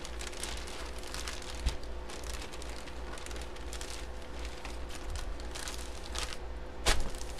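Plastic poly mailer envelope crinkling and crackling as it is handled and torn open by hand, with one louder sharp crack near the end.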